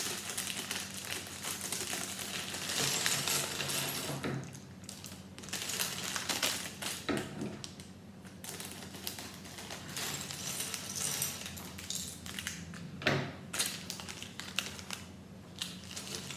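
Plastic bags of Lego pieces being torn open and crinkled, with small plastic bricks clattering out onto a surface; a few sharp clicks stand out among the rustling.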